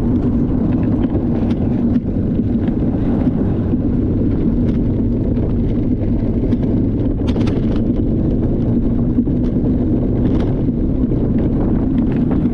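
Luge cart rolling fast down a concrete track: a steady, loud rumble of the wheels on the concrete with wind buffeting the microphone, and a couple of sharp rattles as the cart jolts over bumps.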